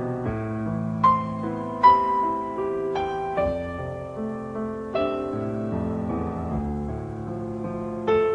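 Background piano music: a slow melody of single struck notes, about one a second, over held lower chords.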